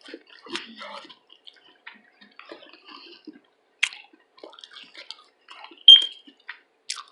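Close-miked mouth sounds of eating: wet chewing, lip-smacking and small clicks, scattered and irregular, with a louder smack about six seconds in.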